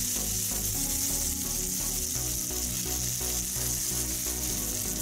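Hot oil sizzling steadily in a frying pan as pieces of flour-dredged fried cod are lifted out with a wooden spatula, with soft background music underneath.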